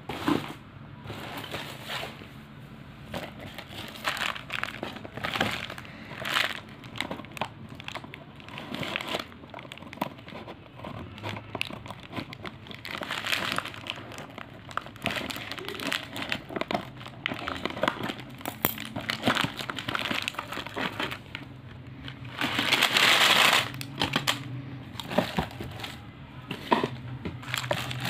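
Plastic candy wrappers crinkling and rustling in short bursts as hands sort through a pile of wrapped candies. About three-quarters of the way through, a louder, longer rush as a box of wrapped candies is tipped out onto the pile.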